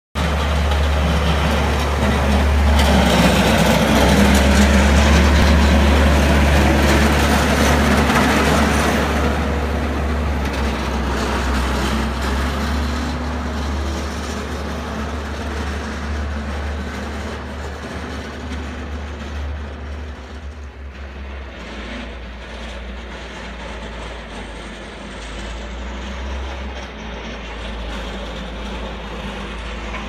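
New Holland 655E backhoe's diesel engine running with a steady low drone while plowing. Its straight blade scrapes and pushes snow along the street, loudest from about two to nine seconds in. The sound then fades as the machine moves off.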